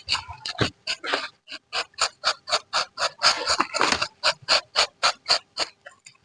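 Quick, regular scraping strokes, about four a second, each short and sharp, stopping suddenly near the end.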